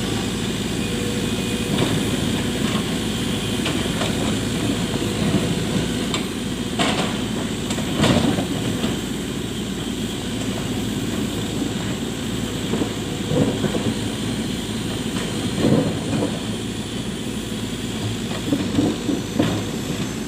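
Sany mini excavator's diesel engine running steadily while digging a foundation trench, with a few short knocks and scrapes from the work here and there.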